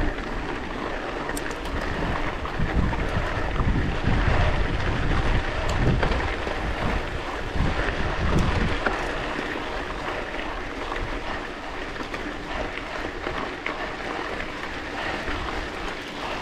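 Wind buffeting a GoPro action camera's microphone on a moving bicycle, gusting hardest in the first half, over a steady rush of tyres rolling on a gravel road.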